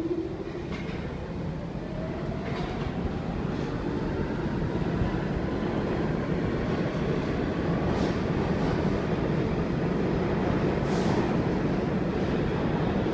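New York City subway train pulling away and gathering speed: a heavy rumble growing louder, with the traction motors' whine rising steadily in pitch over the first several seconds and a few sharp clacks from the wheels.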